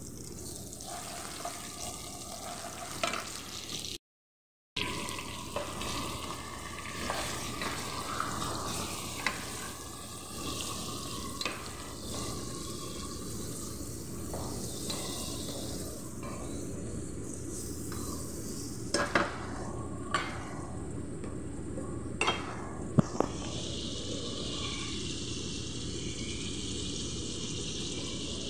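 Onion, garlic and chicken pieces sizzling in oil in a pot while being stirred with a wooden spoon. There are several sharp knocks, the loudest about two-thirds of the way through. The sound cuts out completely for a moment about four seconds in.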